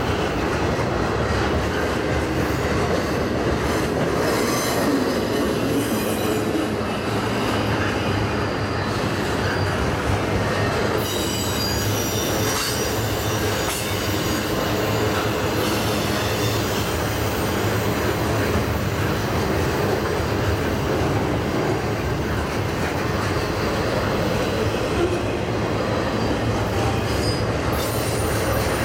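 Freight cars of an intermodal train carrying highway trailers on flatcars rolling steadily past at close range: a continuous rumble of steel wheels on rail with thin, high wheel squeals that come and go, clearest a little before halfway through.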